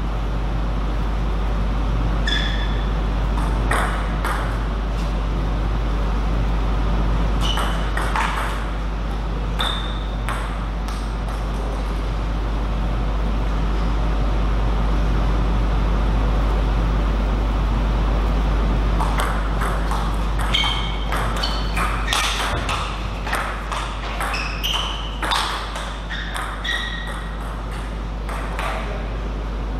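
Plastic table tennis ball clicking off the table and bats, each hit with a short high ping. A few hits come early on, then a quick run of them from about two-thirds of the way in, over a steady low hum.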